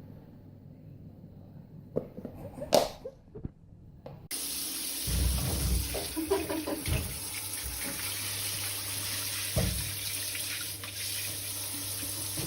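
Steady rush of running water starting suddenly about four seconds in, with a few dull thumps over it; before it, a quieter stretch with a couple of sharp knocks.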